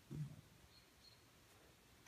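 Near silence: room tone, with one brief soft low bump just after the start.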